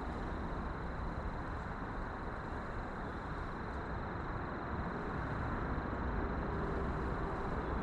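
Steady outdoor rushing noise, heaviest in the low end, with a faint steady high tone running through it and no distinct events.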